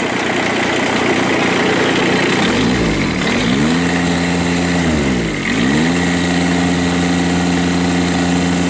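Kubota D782 three-cylinder diesel running with no load on it. Its speed is raised about three seconds in, held, dropped back a little after five seconds, then raised again and held.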